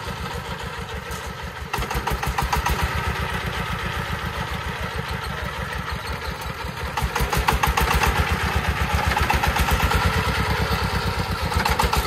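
Single-cylinder diesel engine of a loaded công nông farm truck chugging steadily under load as it crawls over soft dirt. It gets louder about two seconds in and again around seven seconds in.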